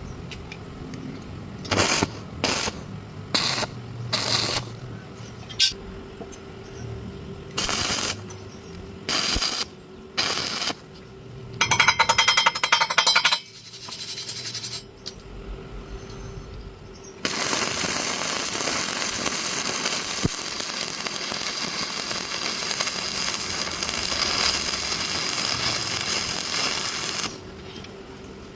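Stick welding arc: a string of short arc bursts, a quick rattling burst, then a steady crackling arc run lasting about ten seconds.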